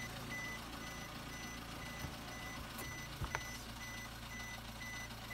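A car's electronic warning chime beeping steadily, a little under three high beeps a second, over a low steady hum. Two short clicks sound near the middle as the stiff gear lever of the Swift Dzire is worked.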